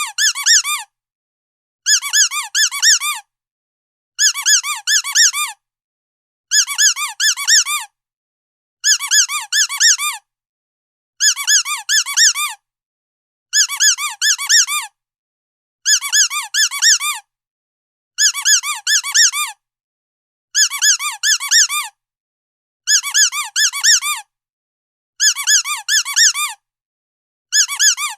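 Squeaky dog toy squeezed in quick bursts of about four squeaks, each squeak rising and falling in pitch. The bursts repeat evenly about every two and a quarter seconds, with silence between them.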